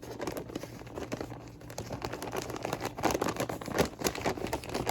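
Paper vacuum bag for a Hoover Convertible crinkling and rustling as it is unfolded and pushed inside the outer bag, with irregular crackles that are busiest about three to four seconds in.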